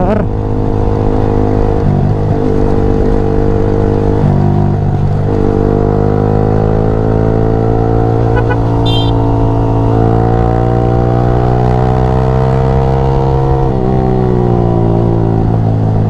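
On-board sound of a Yamaha R15 V3's single-cylinder engine pulling the bike along at road speed, over low wind rumble. The engine note climbs slowly through the middle and drops about two seconds before the end.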